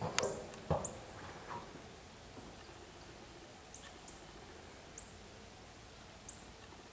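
Faint, still outdoor ambience. There are a couple of sharp knocks near the start, then five short, high chirps spread through the rest.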